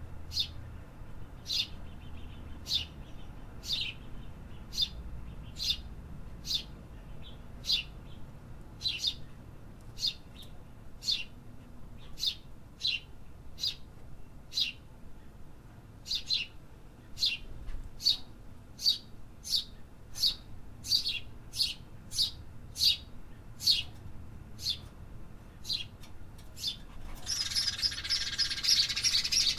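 A bird chirping repeatedly: short, high chirps that sweep downward, about one to two a second. Near the end comes a burst of dense twittering.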